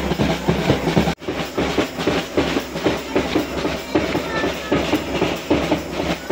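A marching snare drum beaten with sticks in a fast, steady beat, mixed with people clapping along. The sound breaks off for an instant about a second in and then carries on.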